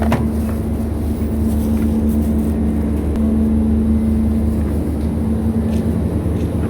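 Steady motor running: a constant hum with a low rumble underneath, and a brief click right at the start.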